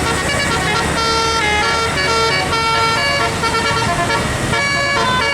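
Tour bus 'telolet' musical air horn playing a tune: several horn notes held briefly and changing in steps, over the low rumble of the bus.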